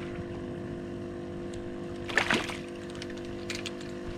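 A small redfish splashing at the surface as it is reeled to the boat, loudest about two seconds in, over a steady mechanical hum from the boat.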